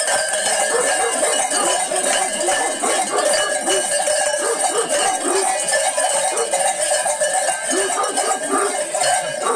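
Metal bells on a sheepskin saya-gezme costume clanging continuously as the wearer shakes and dances, a dense, unbroken jangle with some ringing tones.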